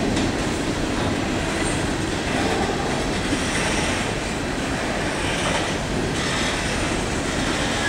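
Freight train of empty steel coal hopper cars rolling past close by: a steady rumble of wheels on the rails.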